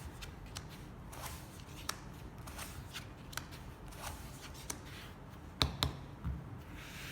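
Playing cards being dealt and handled on a table: a string of light flicks and slides, with a few louder taps near the end.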